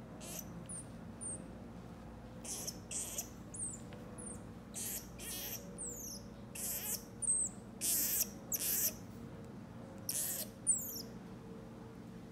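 Marmoset giving a string of short, very high-pitched calls, several sliding quickly down in pitch, coming closer together and louder from the middle on.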